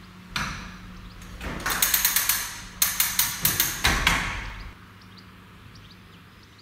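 Wire-worked semaphore signal being pulled to clear: the arm and its linkage clatter in two quick runs of sharp clicks and knocks as the arm swings up to the diagonal 'proceed' position, then the rattling stops.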